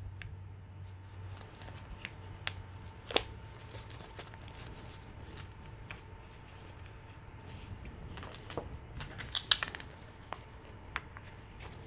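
Plastic toy shotgun shells being pushed into the elastic loops of a fabric shell bandolier: scattered small clicks and rubbing of plastic against fabric, with a sharper click about three seconds in and a quick cluster of clicks near the end.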